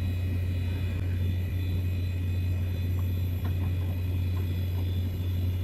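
Power Macintosh G4 running with a steady low fan drone and a faint high whine, with a few faint ticks about three seconds in, while it sits at the flashing question-mark folder, not finding a boot drive.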